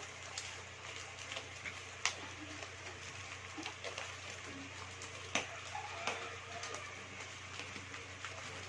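Packaging being handled and worked open by hand: irregular crinkles and sharp clicks, the sharpest about two seconds in and again a little after five seconds.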